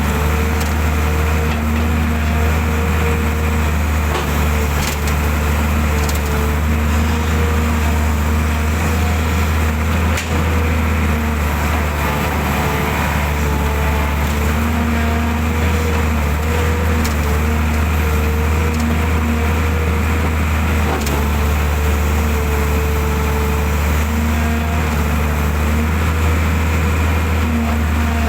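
Excavator's diesel engine running steadily with a deep hum, with a higher whine that rises in and fades out several times as the machine works.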